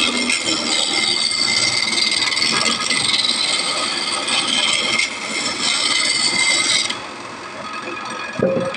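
Wood being worked with a cutting or abrading tool: a steady rasping, scraping noise that stops abruptly about seven seconds in. A quieter stretch follows, with a brief low tone shortly before the end.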